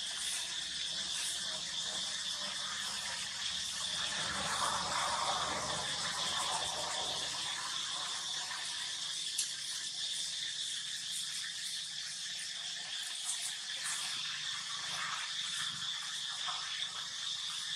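A steady, high-pitched drone of insects, with a few faint rustles and soft clicks.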